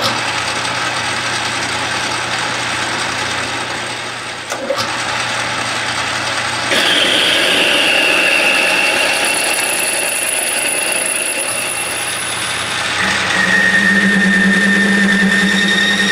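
Metal lathe running while a twist drill, then a boring bar, cuts into a cast-iron casting: a steady machine hum with cutting noise. About halfway through a high whine from the cutting tool sets in, changing to a lower steady tone a few seconds before the end.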